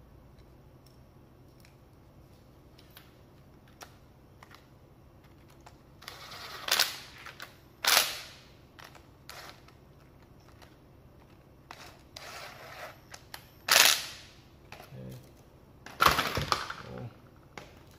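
Sharp clacks and knocks of a power-tool motor and its metal gear housing being handled and fitted together, with a few short rattles; the hits come irregularly, four of them much louder than the rest, after several quiet seconds.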